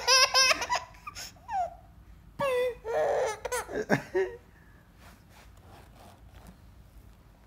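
A baby laughing in short bursts of high, wavering giggles during the first four seconds, then falling quiet.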